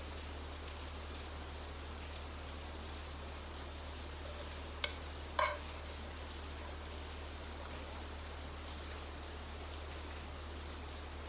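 Steady hiss of rain over a low hum. About five seconds in, two short clicks of a metal spoon against a frying pan, about half a second apart.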